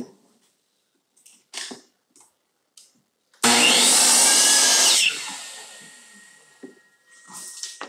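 Electric miter saw cutting through a length of wooden baseboard trim: the motor starts about three and a half seconds in and runs loud through the cut for about a second and a half, then the blade winds down over the next couple of seconds. Before the cut there are a few light knocks as the board is set against the fence, and a little handling clatter near the end.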